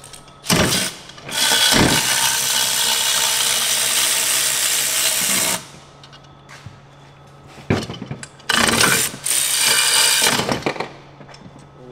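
Cordless electric ratchet running in bursts as it spins out the bolts of a diesel intake throttle valve housing: a short burst near the start, a long run of about four seconds, then another couple of seconds of running near the end.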